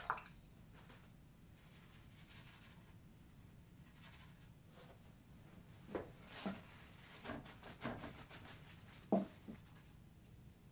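Quiet watercolour brush work: faint scratching of a brush on paper, with a few short knocks and clinks of painting tools handled on the work table. The knocks come once at the start and in a cluster from about six seconds, the sharpest about nine seconds in.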